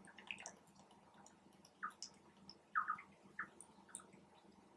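Faint, scattered wet mouth clicks and smacks from eating close to the microphone, a few separate ones over the stretch.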